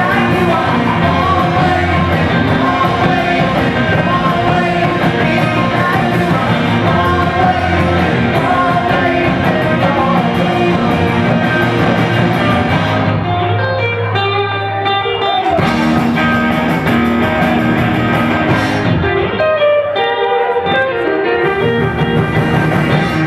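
Live rock band playing: electric guitars, bass and drum kit, with a sung vocal. In the second half the band sound thins out twice for a couple of seconds, leaving sustained guitar and bass notes ringing.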